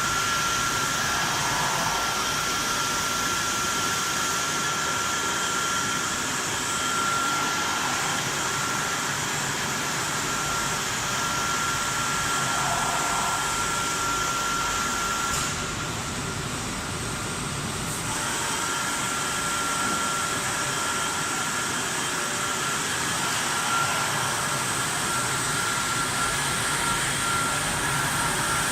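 Vertical flat glass washing machine running steadily: a constant noisy whir with a thin high-pitched whine over it. The whine cuts out for a couple of seconds about halfway through.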